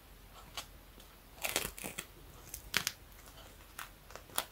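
Faint, scattered crackles and rustles as an old adhesive ostomy seal ring is peeled off the skin around a stoma.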